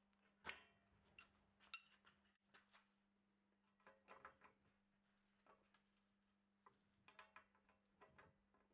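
Faint, scattered metallic clicks and light taps as a bottom bracket cup is turned by hand into the threaded bottom bracket shell of a steel bicycle frame, over a steady low hum.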